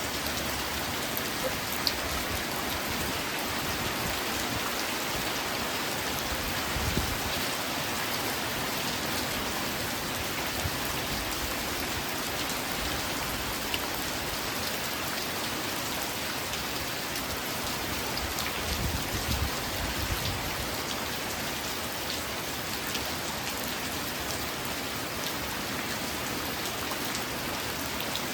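Steady rain falling on a surface: an even hiss with scattered louder drop ticks. A brief low rumble comes about a quarter of the way in and again about two-thirds of the way through.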